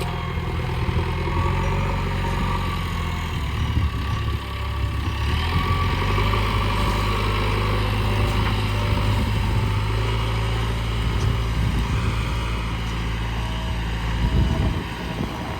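Backhoe loader's diesel engine running steadily, its note shifting a few seconds in and the steady engine sound breaking off near the end.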